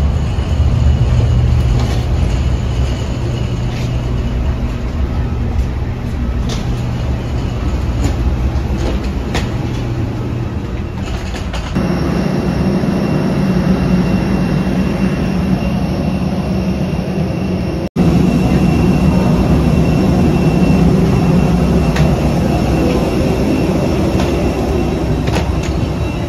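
Loud steady engine rumble with a faint high whine. The sound changes abruptly about twelve seconds in, and again after a brief dropout about eighteen seconds in.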